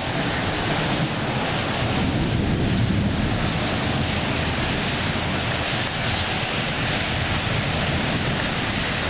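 Thunderstorm: steady rain with a low rumble of thunder that swells about two to three seconds in.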